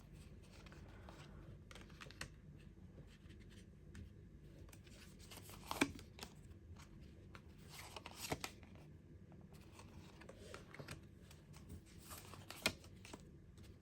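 Tarot cards being handled, faint: soft rustling with a few sharp card snaps, the loudest about six and eight seconds in and again near the end.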